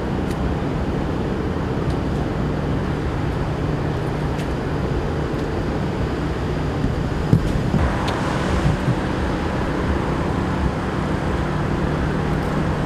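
Steady low hum of an idling motor vehicle engine. A few light knocks come about seven seconds in, and a short swell of hiss about eight seconds in.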